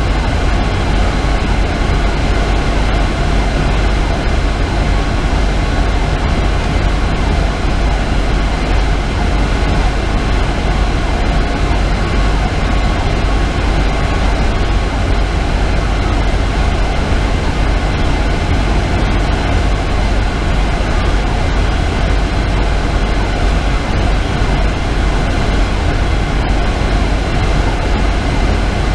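Steady in-cab running noise of a Pierce Velocity fire engine at highway speed: its 470 hp Detroit Series 60 diesel, tyres and wind together give a continuous low rumble.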